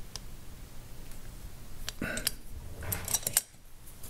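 Small metal clicks and clinks of an Allen key working the screw on the power-valve center closing fork of a Yamaha YZ250 two-stroke cylinder and then being pulled out, with a cluster of sharper clinks a little after two seconds and again around three seconds in.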